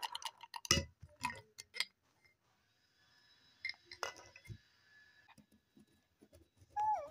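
Light clicks and clinks from a mosaic glass jar and small plastic toy figurines being handled on a woven placemat, a few sharp taps in the first two seconds and more around the middle. Near the end, a brief whine that falls in pitch.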